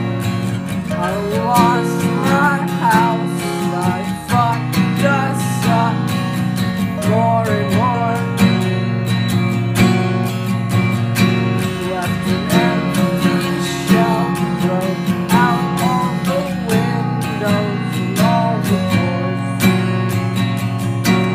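Electronic music track: a plucked, guitar-like melody over sustained low bass notes and a steady beat.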